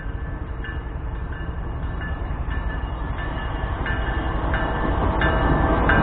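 GE ES43BBi diesel-electric locomotive approaching at close range, its engine rumble and wheel noise growing steadily louder as it nears. A warning bell rings about every 0.7 s, also getting louder.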